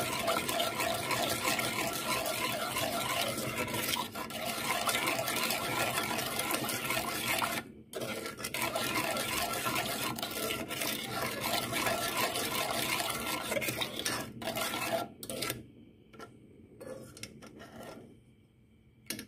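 Metal ladle stirring and scraping against the inside of a stainless steel saucepan of chili sugar syrup being boiled down toward caramel, with a brief pause about eight seconds in. The stirring stops near the end, followed by a single short click.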